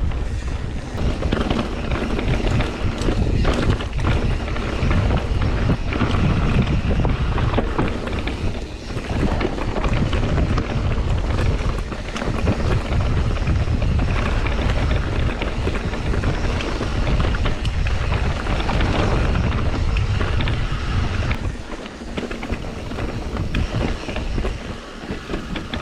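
Wind buffeting the microphone and the rumble of mountain bike tyres rolling over a dirt trail on a fast downhill run, easing off a little near the end.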